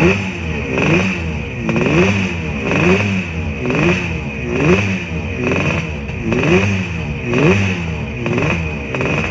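Racing sidecar outfit's engine running on the spot, its throttle blipped about once a second so the revs rise and fall repeatedly.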